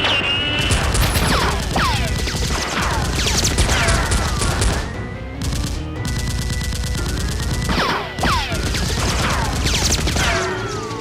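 Rapid bursts of dubbed-in gunfire sound effects, machine-gun fire with many short ringing tones falling in pitch, over background music. The shooting thins out briefly about halfway through.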